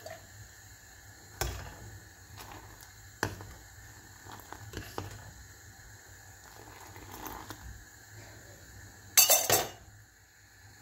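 Steel ladle knocking and clinking against a steel saucepan of boiling chai: a few separate knocks, then a quick loud rattle of clinks near the end, over the low hiss of the chai at the boil.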